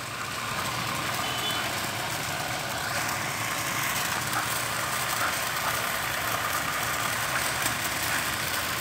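Steady background noise: an even rush that holds level throughout, with no distinct knocks, barks or voices.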